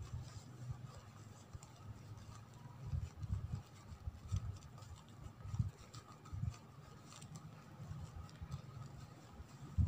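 Soft crackling rustle of layered mulberry paper being pulled apart and fluffed by hand, with irregular dull knocks of handling, the loudest near the end.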